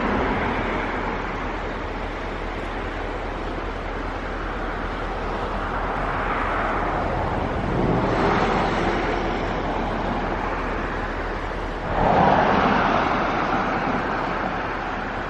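Cars passing on a road, rising and falling as each goes by, over a steady background rush. The loudest pass comes near the end.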